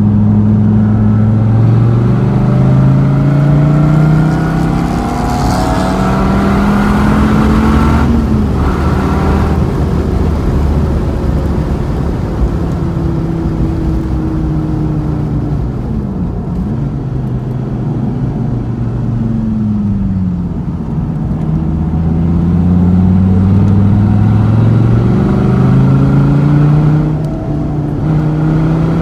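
Sports car engine heard from inside the car on a race track, revving hard as it accelerates, its pitch climbing and then falling back at shifts and lifts, with a short dip about halfway through before it builds up again.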